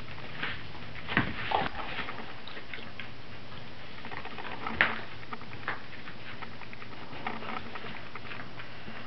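A puppy and a Great Dane play-wrestling on carpet: scattered soft scuffles and clicks of mouthing and pawing, the sharpest click about five seconds in, over a steady low hum.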